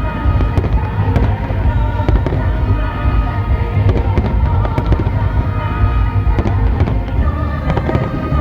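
Aerial fireworks going off in rapid succession, a dense run of bangs and crackles, over loud music played with the display, heard through a phone microphone with a heavy, overloaded low end.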